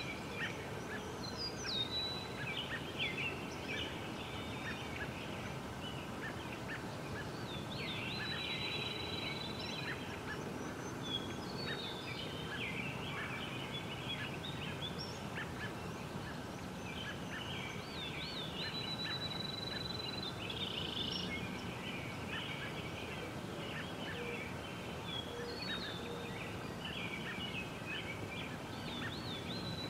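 Outdoor birdsong: several songbirds chirping and trilling, with a long, high, steady whistled note about every ten seconds, over a steady low background noise.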